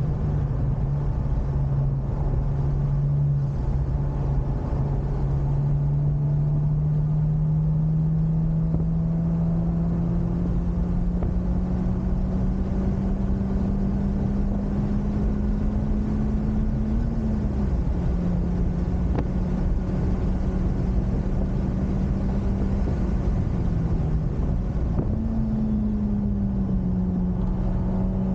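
Honda Civic Type R FK8's 2.0-litre turbocharged four-cylinder running hard on track, its note climbing slowly for most of the stretch and dipping briefly twice, over steady road and wind noise.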